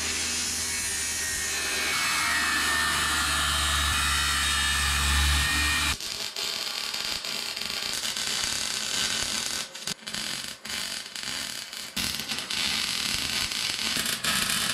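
Angle grinder cleaning up steel, running steadily for about six seconds. It is followed by a MIG welder laying welds on the steel in several short runs, with brief stops between them.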